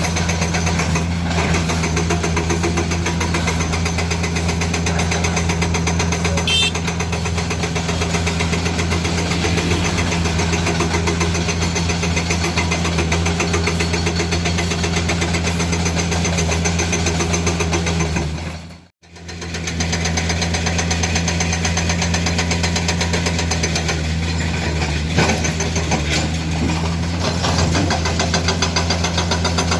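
Komatsu PC200 hydraulic excavator's diesel engine running steadily with a low, even drone while it works broken rock. The sound cuts out briefly about two-thirds of the way through, and there is a sharp knock a few seconds later.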